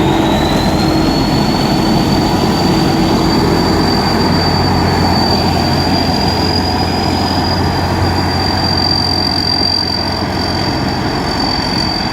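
Rice combine harvester's diesel engine running steadily, with a high whine that climbs a little in the first second or so, then holds level.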